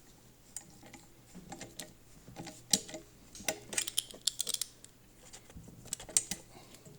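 Scattered sharp clicks and light clatter of parts being handled during assembly, with a quick run of clicks about four seconds in and a few more near the end.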